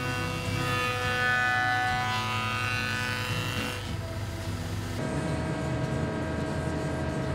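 A woodworking spindle moulder runs steadily while a curved chestnut window part is shaped against its cutter, under background music with held tones. The sound changes abruptly about five seconds in.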